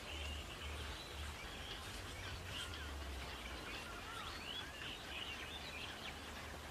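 Quiet rural outdoor ambience with small birds chirping on and off, over a low steady hum.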